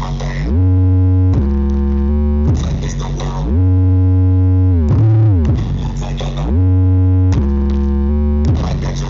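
Bass-heavy electronic music played loud through a large sound system. Deep synth bass notes are held for about a second each and slide up or down in pitch between notes, with short hissy bursts in the gaps.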